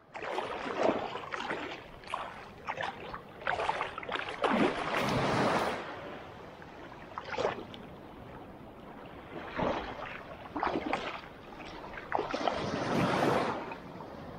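Shallow water sloshing and lapping at the shoreline in irregular bursts, loudest in two longer surges near the middle and near the end.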